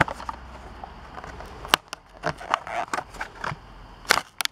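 Clear plastic blister packaging of a toy car card crackling and snapping as it is pried open by hand: a handful of sharp separate cracks, the loudest about four seconds in.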